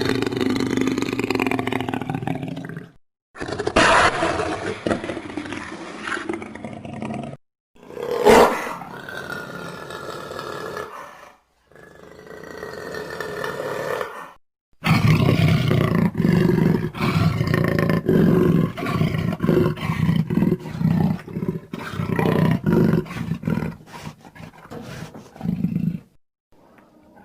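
Made-up dinosaur roars and growls for Eoabelisaurus, a string of separate calls with short gaps between them. A short, sharp call comes about a third of the way in. A long, rapidly pulsing growl fills most of the second half.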